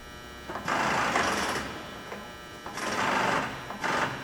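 Pneumatic power drawbar on a CNC mill's number 30 taper spindle firing in three rattling bursts of hiss: about a second long, then a shorter one, then a brief one near the end, over the machine's steady electrical hum.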